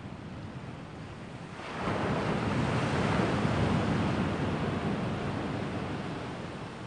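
A gust of wind, a rushing noise that swells suddenly about two seconds in and then slowly dies away.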